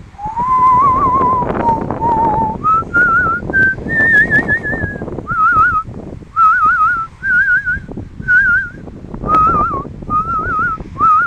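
A person whistling a slow melody in held notes with a quavering vibrato, in short phrases that climb in pitch over the first few seconds. Underneath is a low rumble of wind on the microphone.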